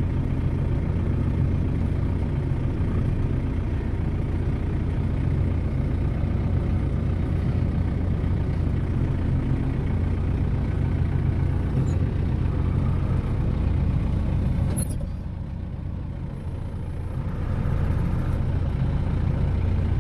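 A vehicle engine running steadily with a low, even drone. About fifteen seconds in there is a sharp click, and the sound dips for a couple of seconds before coming back.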